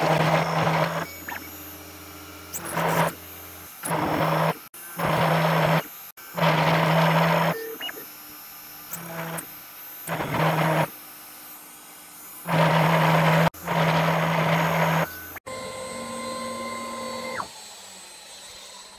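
A CNC router spindle drives a 6.3 mm YG1 drill bit into thick aluminium plate in repeated pecks: about nine loud bursts of cutting noise, each up to a second and a half long, with quieter spells between them as the bit retracts. The cut sets up quite a bit of vibration and the spindle struggles under the load. Near the end a steadier tone runs for a couple of seconds and then cuts off.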